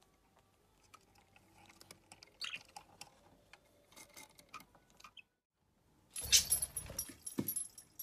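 A budgerigar at a wooden nest box, with light clicking and scratching of claws and beak on the wood. About six seconds in, after a brief gap, comes a much louder burst of rustling handling noise with knocks.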